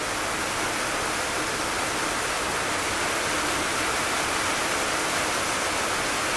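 Heavy tropical squall: a steady, even rush of downpour rain.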